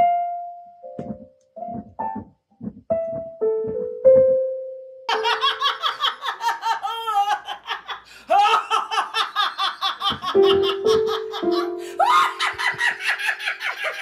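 Single keyboard notes pressed one at a time by a cat's paw, about seven in the first few seconds, each ringing and dying away. About five seconds in, a woman's loud, rhythmic belly laughter starts and carries on over a few more held notes.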